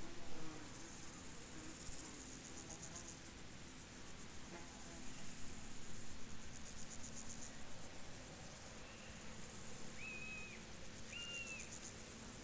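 Field insects chirping in rapid high pulsing trains, each about a second long and repeating every two to three seconds over a soft steady hiss. Two short, faint high whistles come near the end.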